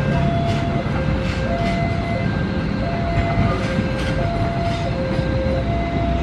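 Kaligung passenger train's carriages running past with a steady rumble and scattered clicks of wheels over rail joints. Over it, a two-tone warning alarm alternates steadily between a lower and a higher note, each held for about three-quarters of a second.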